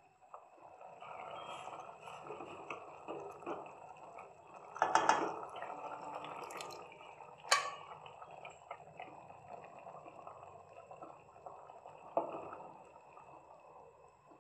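Wet cooking sounds in a steel pan as thick mashed dal and coconut paste are added to a simmering gravy: plopping, sloshing and a spatula stirring, with a louder wet splash about five seconds in and a few sharp clicks of the spatula on the pan.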